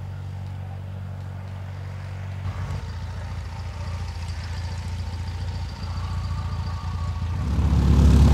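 A Fokker Dr.I triplane replica's piston engine idling, smooth at first and then running rougher after a couple of seconds. It grows louder and deeper near the end.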